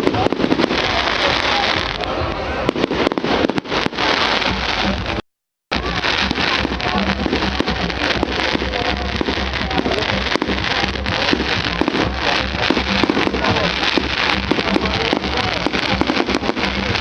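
Fireworks going off with dense, rapid crackling, over a background of voices. The sound cuts out for half a second about five seconds in, then carries on.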